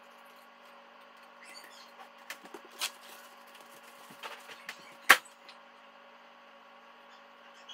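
Light clicks and knocks of kitchen handling, then one sharp, loud clack about five seconds in as the over-the-range microwave's door is shut, over a steady faint hum.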